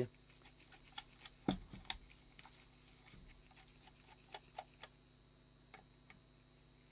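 Faint, irregular small clicks and taps of a screwdriver working the lens-mount screws out of an Olympus PEN F camera body, with one louder knock about one and a half seconds in.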